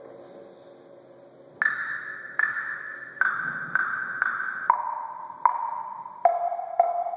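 Multi-percussion solo: a pitched metal percussion instrument struck one note at a time, each note ringing on after the strike. A high note is struck five times, then a lower note twice, then a lower one again twice, about one to two strikes a second, after a last ring fades out.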